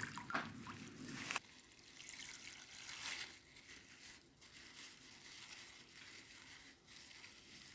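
Faint crinkling of a plastic bag and split lentils pouring into a glass bowl of water, in short stretches during the first three seconds or so, then near silence.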